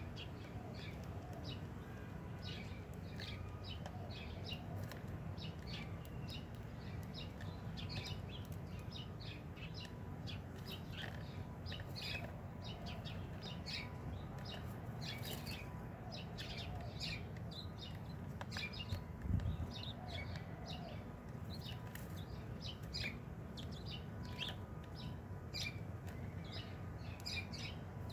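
Sparrows chirping: many short, high chirps come and go over a steady low rumble. A single dull thump about two-thirds of the way through is the loudest sound.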